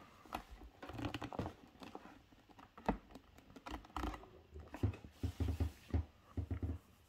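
Faint irregular clicks, taps and rustles of handling noise close to the microphone, with a few brief low thumps.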